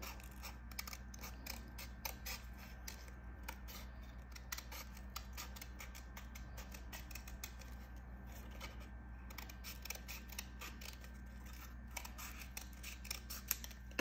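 Scissors cutting around a construction-paper circle: faint, quick snips and blade clicks in short runs with brief pauses between them.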